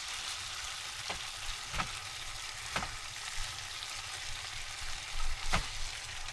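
Hamburger patties and fried rice sizzling in a pan, a steady hiss, with a few sharp clicks scattered through it.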